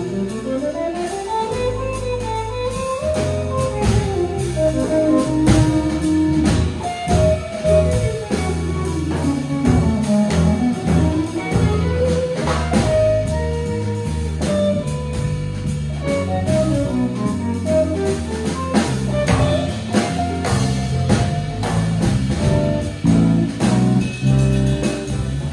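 Small jazz band playing: electric guitar in running single-note lines over electric bass and drum kit with cymbals.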